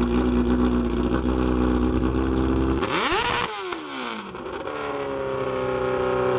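Motorcycle engine running at a steady speed, then revved sharply about three seconds in. The revs drop back and then climb slowly again near the end.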